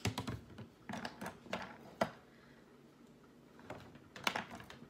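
Makeup tools being handled and put down: a run of sharp clicks and light clacks, several taps in the first two seconds and another cluster near the end.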